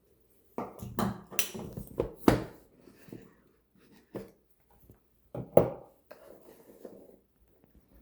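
Hands unpacking a smartphone from its cardboard retail box: irregular scraping and rustling with a few sharp taps, in two busy spells with a pause between.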